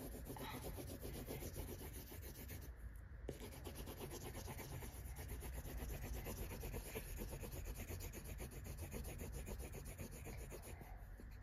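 Pencil scribbling fast on a sheet of paper over a hardback book: rapid back-and-forth shading strokes, with a brief pause about three seconds in.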